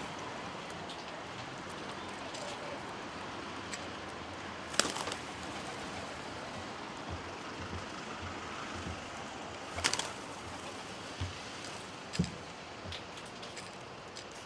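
Faint bird calls, likely pigeons, over steady outdoor background noise, with two sharp clicks about five seconds apart as the loudest sounds and a few soft low thumps later on.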